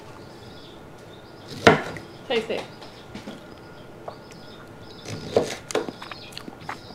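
Kitchen clatter: a few sharp knocks and clinks of utensils and dishes being handled during cooking, the loudest about one and a half seconds in and a cluster more near the end.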